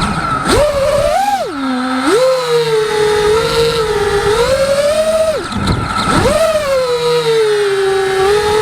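Eachine Wizard FPV quadcopter's brushless Emax motors whining in flight. The pitch rises and falls with throttle, dropping sharply where the throttle is chopped, once briefly at the start, again a little before 2 s in, and deepest about 5.5 s in, then climbing back.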